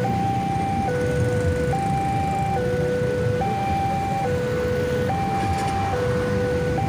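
Railway level-crossing warning alarm: an electronic two-tone signal alternating steadily between a lower and a higher note, each held just under a second, warning that a train is approaching. Motorcycle engines run underneath.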